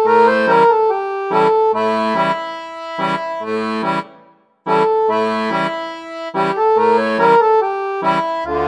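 Channel intro music: a tune of sustained, repeating chords, which drops out for about half a second a little after four seconds in.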